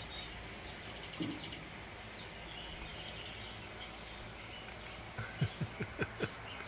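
Songbird chirps and trills from a bird-feeder video playing through a TV's speakers, scattered high calls over a steady hiss. A quick run of short low sounds comes about five to six seconds in.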